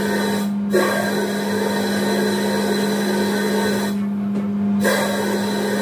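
Machinery running: a steady hum under a loud hiss that drops out briefly about half a second in and again for most of a second around four seconds in.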